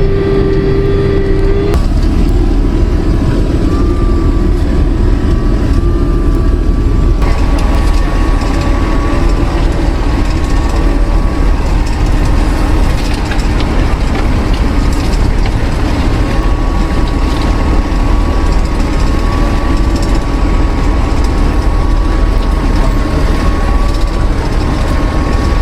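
SHERP amphibious ATV under way, heard from inside: a loud, steady engine drone with a thin wavering whine above it. The sound changes abruptly about 2 and 7 seconds in.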